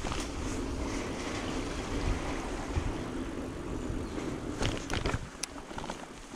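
Mountain bike tyres rolling over a steel grating bridge deck, a steady buzzing hum, with a few sharp clatters as the bike comes off the end of the grating about five seconds in.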